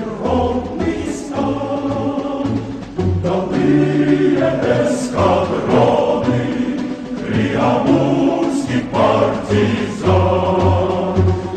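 Choral music: a choir singing a song in sustained, full chords, with repeated low bass notes underneath.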